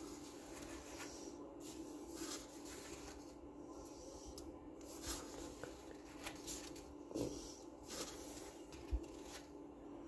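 Pages of a paper coloring book being turned and handled: soft, scattered rustles with a few light knocks, the sharpest near the end, over a faint steady hum.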